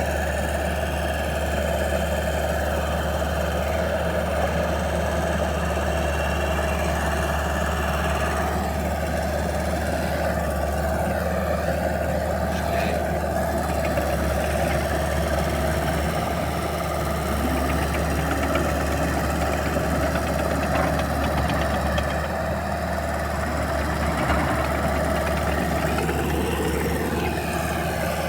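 Engine of a 2003 Rayco Super Crawler C87L tracked skid steer, idling steadily.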